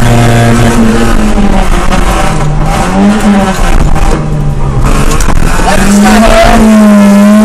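Ford Fiesta 1.8 rally car's engine heard from inside the cabin under hard driving. The revs fall and rise several times, then are held high near the end.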